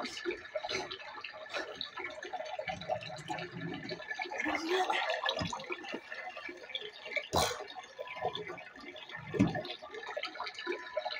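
Handling noise from a phone held close and moved around: rustling against bedding and clothing, with scattered small clicks and one sharper click about seven seconds in.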